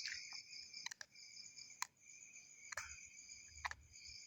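Crickets trilling steadily in the background, broken by sharp clicks about once a second from stretchy slime being pulled and handled.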